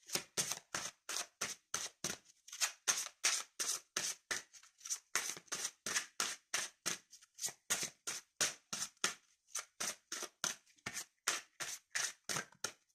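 A deck of oracle cards shuffled in the hands: a rhythmic run of short card slaps and flicks, about four a second, stopping just before the end.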